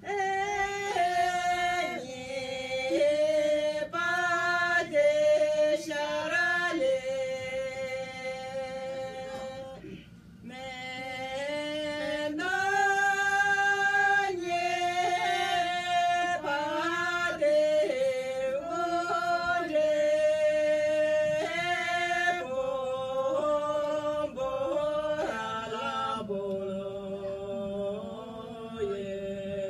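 Women singing a song together without instruments, in long held notes that step up and down, with a short break for breath about ten seconds in.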